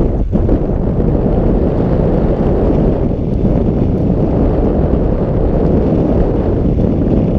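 Steady wind noise buffeting the microphone of a camera riding along on a moving bicycle.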